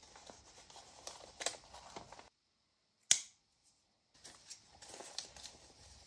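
Faint rustling and light clicks of hands handling paper and fibre trim while tying it. Partway through the sound drops out completely for about two seconds, broken by one sharp click, then the faint paper handling resumes.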